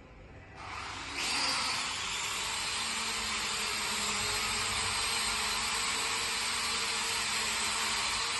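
Small quadcopter drone's motors and propellers spinning up about half a second in, rising again a moment later, then running at a steady whirring hiss that cuts off suddenly.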